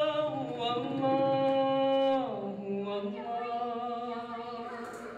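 A man singing "Allahu" unaccompanied in long held notes. His pitch slides down about two seconds in, and the last lower note fades toward the end.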